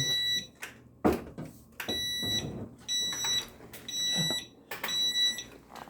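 An electronic appliance beeper sounding a series of short, high, steady beeps, roughly one a second. There is a sharp knock about a second in.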